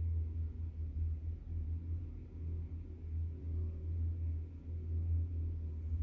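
Loudspeaker driven with a low bass tone, giving a deep hum whose loudness wavers; the cone carries a layer of water set into standing ripples.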